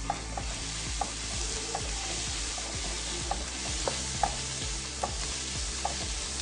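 Sliced onions with curry leaves, ginger and garlic sizzling in hot coconut oil in a non-stick pan as they are stirred with a wooden spatula, which gives light, irregular knocks against the pan.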